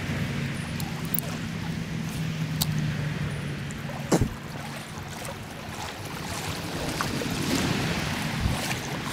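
Shallow stream running over a riffle, a steady rush of water with wind buffeting the microphone and one sharp click about four seconds in.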